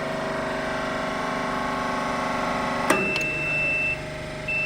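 Hydraulic hose crimping machine running with a steady hum. About three seconds in there is a sharp click, the hum drops, and a high electronic beep sounds for about a second; a second beep starts near the end.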